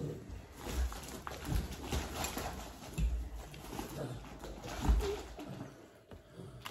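Groceries being unpacked: plastic packaging rustling, with several irregular dull thumps as items are handled and set down on a wooden table.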